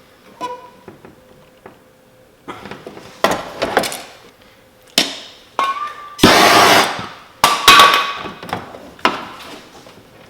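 Paintless dent repair tools striking a car body panel: a run of irregular sharp taps and clinks, several with a short metallic ring, and one longer scraping burst about halfway through.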